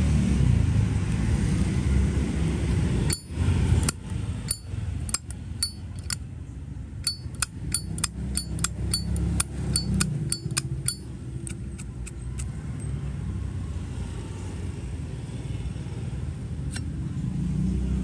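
Brushed-chrome 2003 Zippo lighter's hinged lid flicked open and snapped shut over and over: some two dozen crisp metallic clicks, quickening in the middle, then one lone click a few seconds later. A low steady rumble runs underneath.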